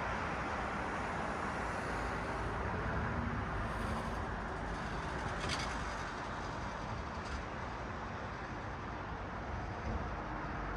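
Steady hiss of road traffic: cars passing on a city street, with the sound easing a little in the second half. A few faint short clicks come through in the middle.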